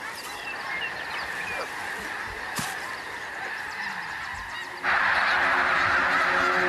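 A large flock of snow geese calling, a dense continuous mass of overlapping honks. About five seconds in the chorus turns abruptly louder and fuller, and a held music chord comes in under it.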